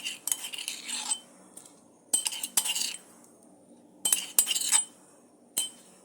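Metal utensils clinking and scraping against a cooking pot in four short bursts, each with a bright metallic ring, as spices are added to the soup.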